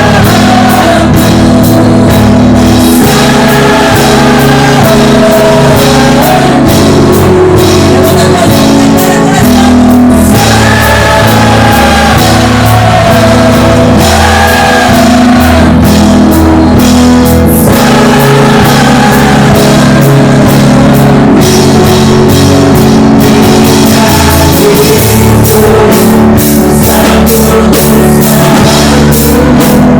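Live church worship band playing a loud, steady song on drum kit and electric guitar, with sung vocals over it.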